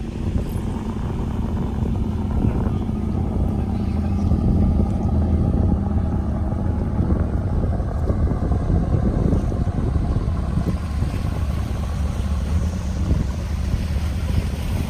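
Wind buffeting the microphone over a steady low rumble of boat traffic on the water.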